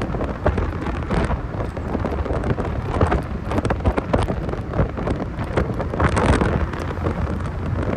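A 1990 Mazda Miata being driven, its road and engine rumble buried under heavy wind buffeting and crackle on the microphone.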